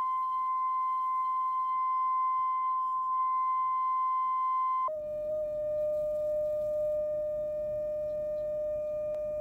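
A loudspeaker with a cardboard plate fixed on it, driven by a signal generator, sounds a steady pure test tone, the 943 Hz setting, which shakes the plate so that the salt on it gathers into Chladni figures. About five seconds in, the tone drops abruptly to a lower steady tone, the 605 Hz setting.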